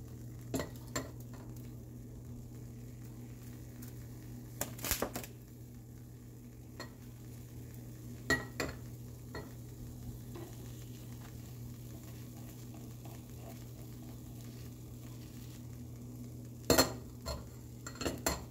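Beaten egg and cheese frying in a nonstick pan over medium heat, a quiet steady sizzle over a low hum. A few sharp clicks and knocks of something against the pan break in now and then, the loudest near the end.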